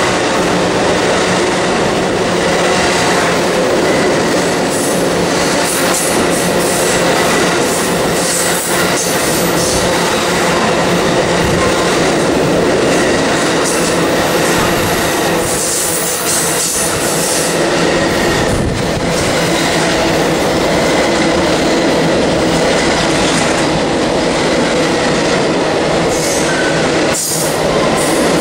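Amtrak Auto Train rolling past at speed, its Superliner bilevel cars and then enclosed autorack car carriers. Steel wheels on the rails give a loud, steady rumble and clatter with a faint thin wheel squeal over it.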